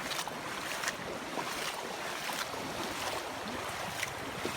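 Steady rush of floodwater flowing through a washed-out rice-field bank, with faint short splashes every second or so.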